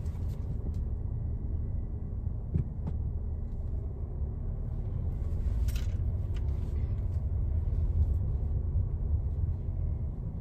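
Car running, heard from inside the car: a steady low rumble with a few light clicks.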